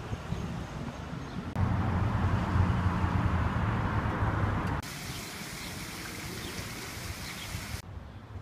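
Town street ambience: traffic noise with a low steady hum, loudest from about one and a half to five seconds in. The background then changes abruptly to a brighter hiss, and drops again near the end.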